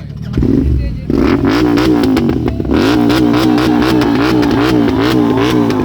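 Motorcycle engine revved hard in quick repeated throttle blips, the pitch swinging up and down two to three times a second, with sharp crackles over it. It starts about half a second in and stops near the end.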